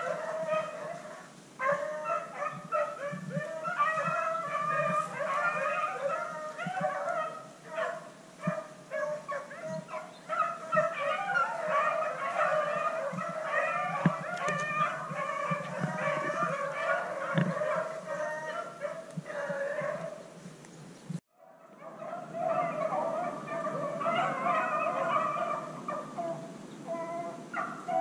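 A pack of beagles baying and howling as they run a rabbit's scent trail, several dogs' voices overlapping almost without a break. The sound drops out for a moment about three-quarters of the way through.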